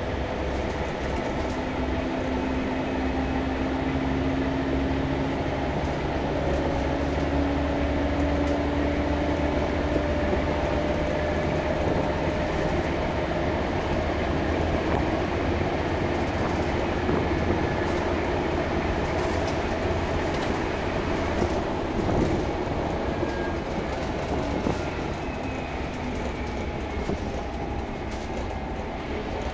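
Scania K230UB OmniLink bus on the move, heard from inside the passenger saloon: a steady diesel engine drone and road noise, with the engine note rising in steps over the first several seconds. A few rattles from the fittings come about twenty seconds in.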